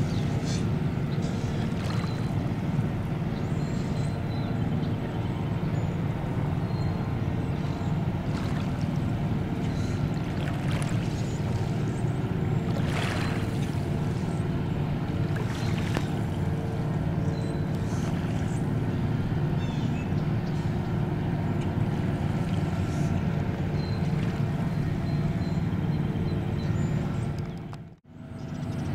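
Steady low rumble of a distant engine, with a few faint bird chirps over it. The sound breaks off for a moment near the end.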